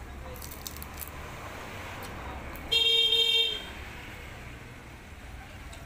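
A vehicle horn honks once, a single steady toot under a second long, about three seconds in, over the low rumble of passing traffic.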